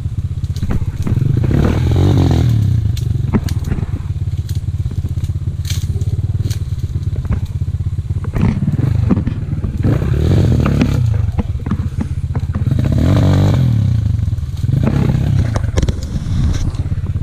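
Kovi Lite 250 enduro motorcycle engine running under load, revving up and dropping back about four times, with scattered clicks and clatter over it.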